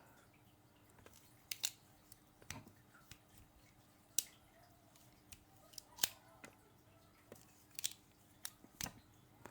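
Faint, scattered metallic clicks and snicks from a freshly oiled Leatherman Wave Plus multitool as it is handled and its pliers and tools are worked open and shut, about a dozen clicks spread irregularly.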